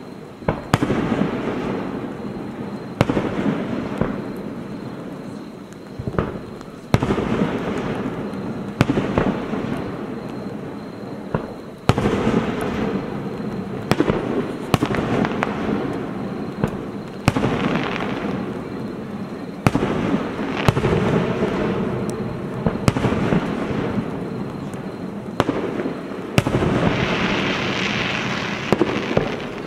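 Aerial fireworks shells bursting one after another, a sharp bang every second or two, each trailing off into a long rolling echo.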